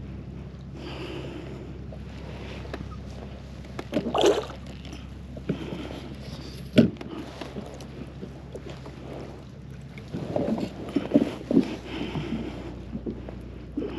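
Handling noises on a fishing kayak while a hooked blackfish (tautog) is brought in: scattered knocks and rustles over a steady low hum. There is a louder burst about four seconds in, a single sharp knock about seven seconds in, and a busier run of knocks near the end.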